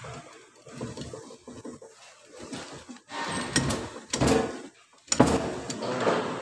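Metal parts of a Toyota RAV4 CVT clicking, clunking and scraping as a clutch assembly is turned and pressed by hand into its drum in the transmission case. The knocks come irregularly, with louder clusters in the second half.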